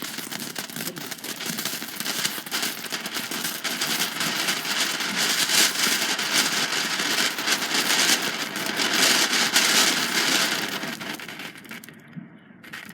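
A lit ground firework burning with a dense crackling hiss that grows stronger toward the middle and dies away near the end.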